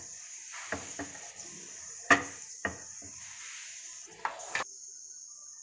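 Whole spices (cinnamon, cloves, bay leaves) sizzling in a little hot ghee in an aluminium pressure cooker, a steady hiss broken by about seven sharp crackling pops, the loudest about two seconds in. The sizzle dies down near the end.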